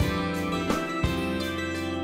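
Background music led by guitar, with new notes struck every half second or so over a held bass line.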